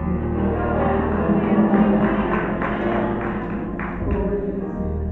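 Church choir singing a gospel song with band accompaniment: a steady low bass and drums under the voices, with a couple of sharp hits about four seconds in.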